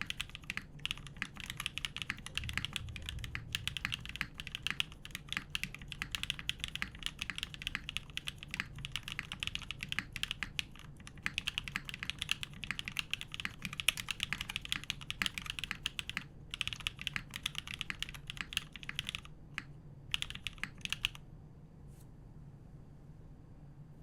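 Steady fast typing on a KMG B60 mechanical keyboard with linear frankenswitches (Kailh x NK_ Cream stems, Cherry Black top housings, JWK H1 bottom housings), an aluminium plate and GMK keycaps: a dense run of keystrokes broken by a few short pauses, stopping a few seconds before the end with a single faint tap after.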